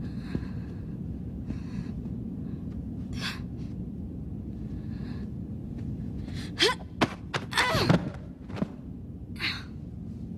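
Hand-to-hand sparring on a floor mat: after a stretch of steady low background hum and soft movement, about two-thirds of the way in comes a quick flurry of thuds and gasps as a body is thrown down onto the mat.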